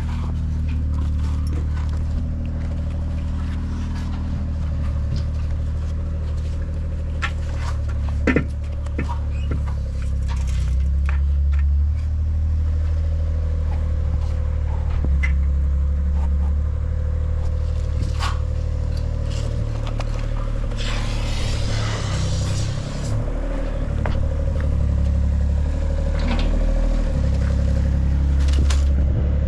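An engine running steadily, its speed shifting up and down now and then, with scattered knocks and scrapes and a brief hiss about two-thirds of the way in.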